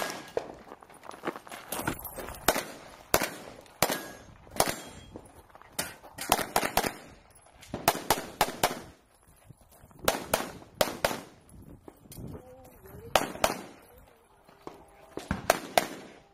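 Pistol shots fired rapidly in quick pairs and short strings, with brief pauses between the strings as the shooter moves between firing positions.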